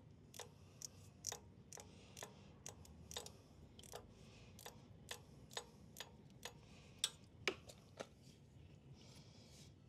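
Faint, sharp clicks from a hand tool loosening a hose clamp, about two a second, stopping near the end.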